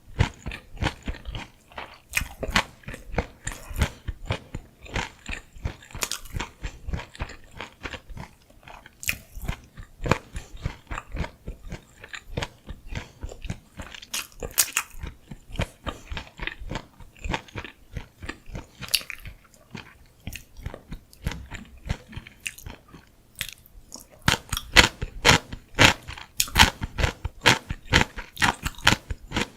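Close-miked chewing and biting of gimbap, with wet, crunchy, irregular clicks that grow louder and more rapid near the end.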